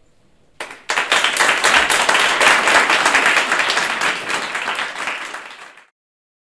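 Audience applauding at the close of a speech: many hands clapping, starting about half a second in, loud for several seconds, then tapering and cutting off suddenly near the end.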